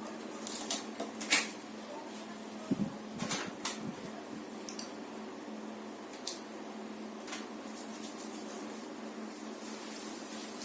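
A few scattered clicks and light knocks of small objects being handled and set down, the sharpest about a second and a half in and a dull thump a little later, over a steady low hum.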